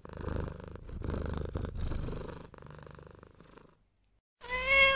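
Kitten purring close up, a low fast rumble that fades out after about three and a half seconds. Near the end comes a short, loud, steady-pitched sound.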